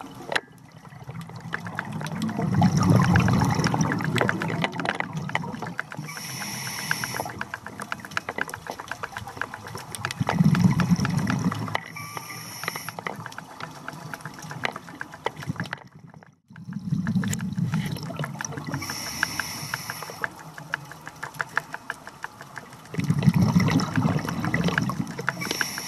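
A scuba diver breathing through a regulator underwater: a short hiss on each inhale and a longer bubbling rumble on each exhale, about four breaths, with fine crackling clicks throughout.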